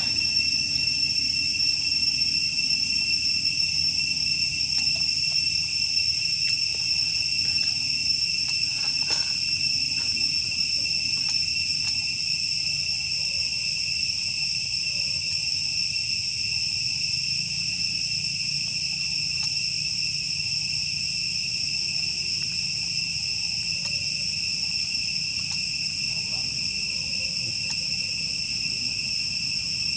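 Steady, high-pitched chorus of insects, a continuous trill held on a few fixed pitches, over a low rumble.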